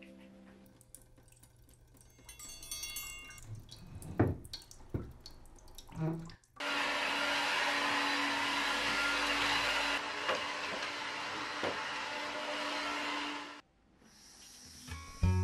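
Stick vacuum cleaner running with a steady hum and rush of air. It starts abruptly about six and a half seconds in and cuts off suddenly about seven seconds later. A few knocks come before it, the loudest about four seconds in.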